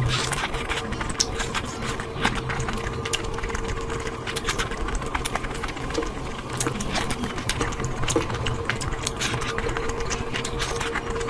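Close-miked eating sounds: wet chewing and irregular lip-smacking clicks, over a faint steady hum.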